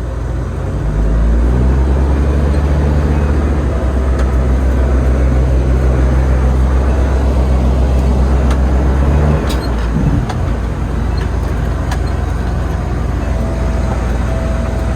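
Gravel truck's diesel engine running: the engine note climbs about a second in, holds steady, then drops off about nine seconds in, leaving a rougher steady noise.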